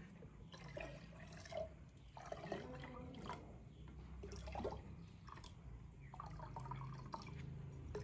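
Water trickling and dripping from a plastic cup into a steel tumbler, in faint, irregular drops and splashes.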